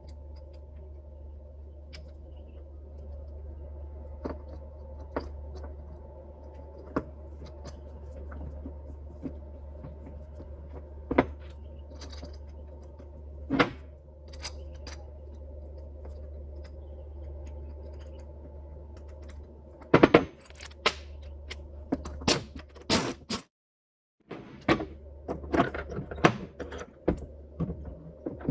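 Scattered metallic clicks, clinks and knocks of tools and parts being handled while a starter motor is taken apart, coming more often in the last third. A steady low hum runs under them.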